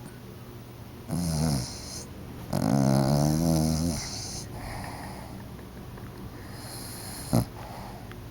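Bichon dog snoring in its sleep: a loud snore about a second in and a longer loud, rattling one from about two and a half to four seconds, then a fainter breath. A short sharp knock comes near the end.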